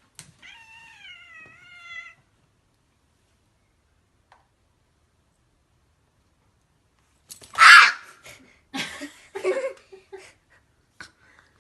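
A domestic cat letting out one drawn-out, wavering angry meow, then after a few seconds' pause a loud harsh burst followed by several shorter rough cries.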